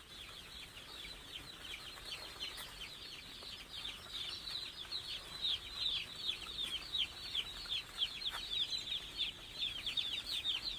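A large flock of day-old chicks peeping together in a brooder: a dense, constant chorus of short, high, falling peeps that grows busier about halfway through. The chicks are chilled and huddling against the cold.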